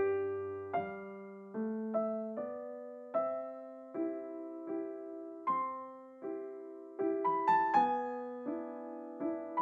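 Background solo piano music: gentle single notes and chords struck about every 0.8 seconds, each fading away, with a brief run of quicker notes a little past the middle.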